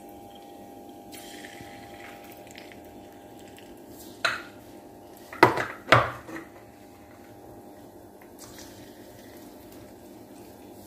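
Pieces of marinated chicken dropped one at a time into hot oil in an aluminium kadai, knocking against the pan: three sharp sounds about four, five and a half and six seconds in, each dying away quickly, over a steady faint background.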